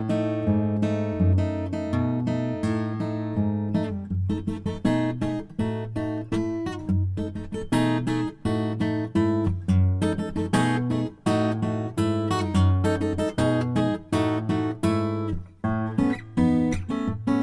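Acoustic guitar playing an instrumental arrangement: a bass line moving under quick strummed and plucked chords.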